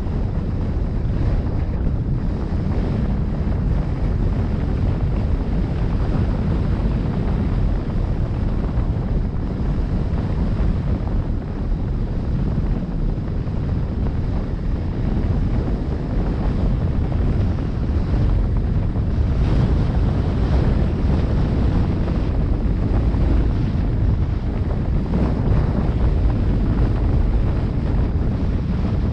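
Wind buffeting the microphone: a loud, steady low rumble with no break.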